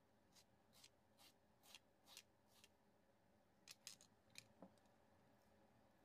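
Kitchen knife slicing through ripe mango flesh on a plate: a run of short, faint cutting scrapes about two a second, then a quicker cluster of sharper ones a little past halfway.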